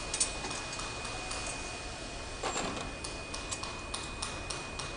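Small metallic clicks and a scrape as a plate is worked loose and pulled out of a paper bowl machine's die assembly, over a steady high-pitched whine.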